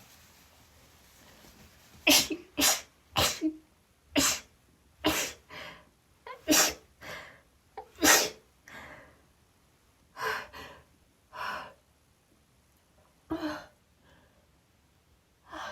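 A woman sneezing rapidly over and over after taking chhinkni sneezing snuff: after a quiet start, about a dozen sharp sneezes follow one another, often in quick pairs, with short gasps between them.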